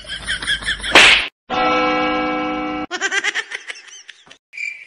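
A rapid string of cut-together comedy sound effects: a sharp smack about a second in, then a held, even-pitched tone lasting over a second, then quick chopped clicks, and a high steady tone starting near the end.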